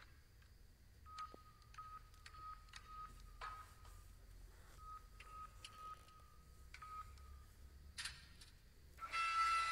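ATM keypad beeping as its keys are pressed: a run of short, quick beeps all at one pitch, a pause of about a second, then more beeps, with faint key clicks. A louder, fuller sound comes near the end.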